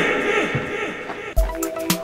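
Background music for an edited sketch: a held chord over deep, thumping beats and sharp percussion hits, coming in about a second and a half in. Before it, the tail of a louder, wavering sound dies away.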